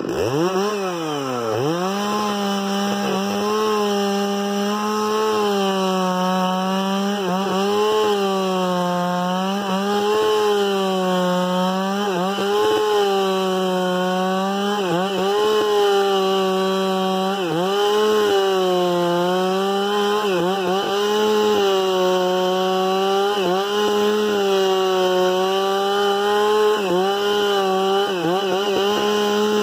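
Chainsaw revving up, then running at high revs and cutting wood, the engine note dipping briefly under load every second or two and picking up again.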